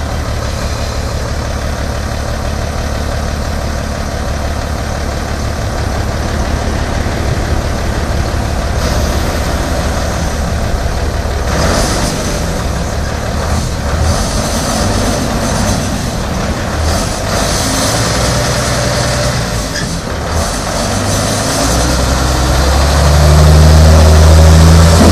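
1991 International 4900 dump truck's diesel engine idling, with a few brief hisses. Near the end the engine speeds up and runs louder as the hydraulic hoist starts raising the dump bed.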